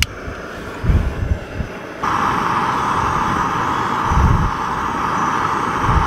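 A Jetboil canister stove burning propane/isobutane gas with a steady hiss that jumps much louder about two seconds in. It opens with a sharp click, and low rumbles of wind buffet the microphone now and then.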